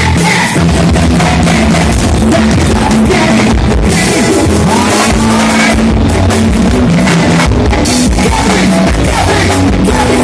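Loud rock-style music with guitar, drums and singing, played at high volume over a car sound system.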